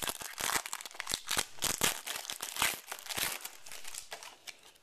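Crinkling and crackling of a foil trading-card pack wrapper as it is handled and opened, in dense irregular strokes that fade near the end.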